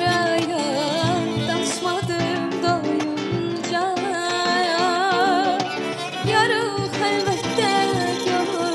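A woman singing a folk song live with wavering vibrato, accompanied by acoustic guitar, violin and cajón.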